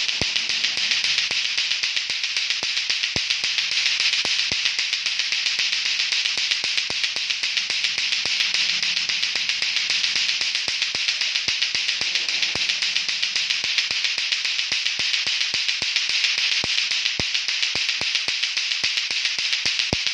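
Lato-lato clacker toy: two hard plastic balls on strings swung by hand, knocking together in a fast, steady, unbroken clacking rhythm.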